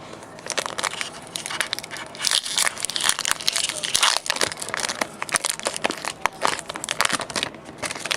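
Foil booster pack wrapper crinkling and being torn open: a dense run of crackles and sharp clicks, loudest in the middle.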